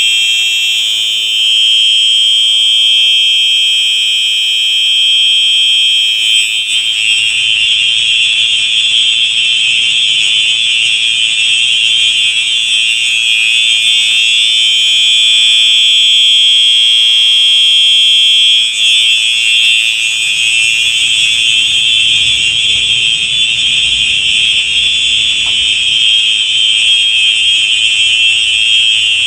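Two Simplex 4903 electronic fire alarm horn strobes sounding together: a loud, steady, high-pitched electronic horn tone that runs without breaks.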